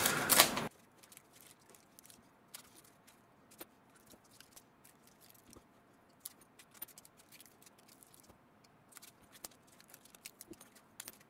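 Kapton tape crackling and clicking as it is handled, cutting off abruptly under a second in; after that only faint, scattered ticks.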